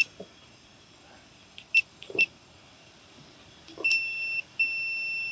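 ONNAIS RV smart lock keypad beeping: three short beeps as keys are pressed, then two longer beeps, the second about a second long, as the lock accepts a newly set password.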